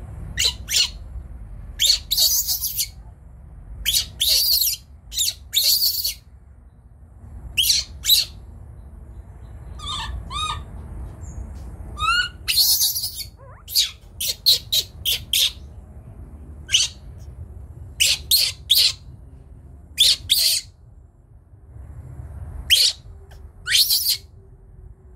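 Baby monkey giving short, shrill squeals again and again in irregular clusters, with a wavering cry about ten seconds in; a frightened young monkey's distress calls.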